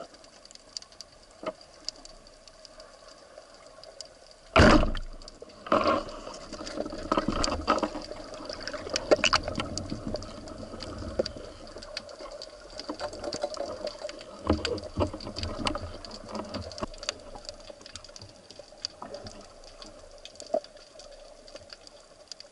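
Underwater speargun shot: a loud, deep thump about four and a half seconds in, a second knock about a second later, then many irregular clicks and knocks as the speared fish struggles on the shaft, over a steady underwater hiss and clicking.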